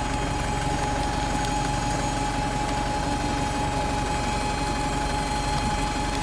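Diesel buses idling at a bus station: a steady engine drone with a constant high whine over it.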